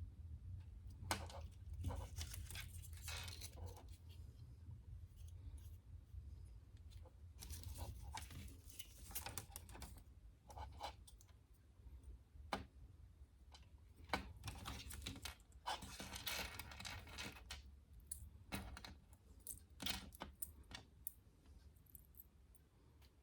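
Small parts and tools being handled during electronics repair work: scattered light clicks, scrapes and short rustling bursts, in clusters around the start, the middle and near the end, over a steady low hum.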